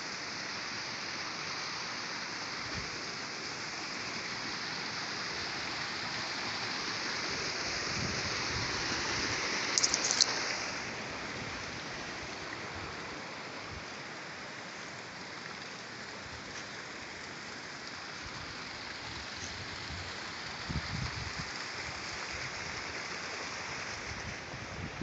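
A steady, even rushing hiss that swells a little and then eases. There is a brief sharp crackle about ten seconds in, and a few soft low thumps.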